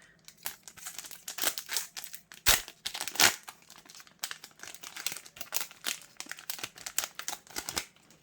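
Foil wrapper of a Yu-Gi-Oh booster pack crinkling as it is handled and torn open, a dense run of crackles over several seconds, loudest about two and a half and three seconds in.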